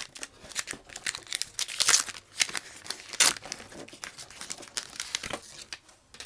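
Wax paper wrapper of a 1989 Donruss baseball card pack being torn open and crinkled by hand, with a run of irregular crackles that are loudest about two and three seconds in.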